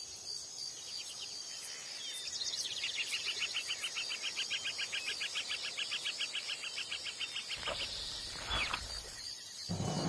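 Forest ambience sound effect: repeated high bird-like chirps, then from about two seconds in a fast, steady pulsing insect trill. Near the end comes a short sharp hit, and music starts suddenly just before the end.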